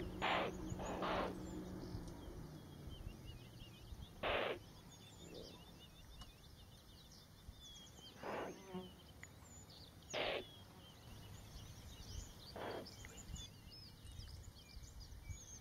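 Small birds chirping in the bush. Six short, breathy, unpitched bursts stand out louder over them, spaced irregularly two to four seconds apart.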